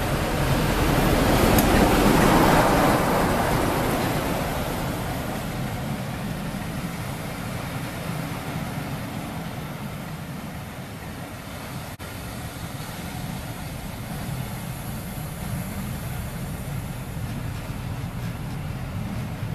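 A Class 47 diesel-electric locomotive passes close by, its engine loudest about two seconds in, then its train of coaches rolls past with a steady rumble of wheels on rail that slowly fades.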